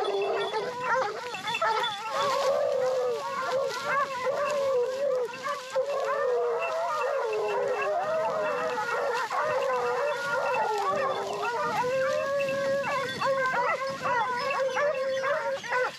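A pack of Porcelaine hounds baying together in full cry, many overlapping voices without a break, as the hounds run a wild boar's trail.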